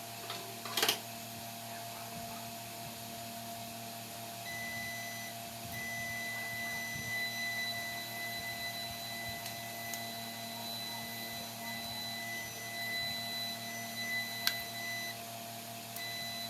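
Multimeter continuity beeper sounding a steady high beep that starts about four seconds in, breaks off briefly, and stops near the end, with a couple of sharp clicks: the test leads are making contact and the meter reads continuity.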